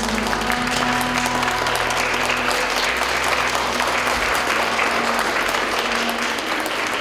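Audience applauding, with the held notes of the music still sounding underneath.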